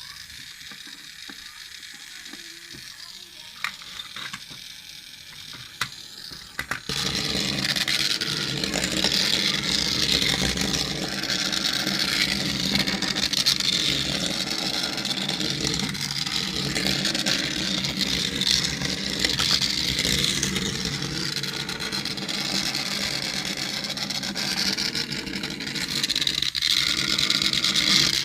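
A radio-control toy car. A few sharp clicks come first, then about seven seconds in a steady, engine-like running sound starts abruptly and keeps going.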